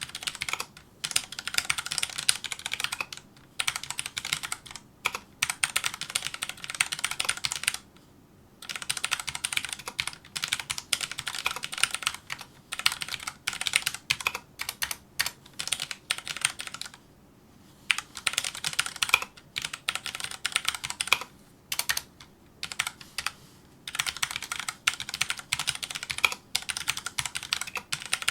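Fast touch-typing on a Filco Majestouch2 mechanical keyboard with Cherry MX Brown switches: a dense run of keystroke clacks in bursts of a few seconds, with short pauses between them.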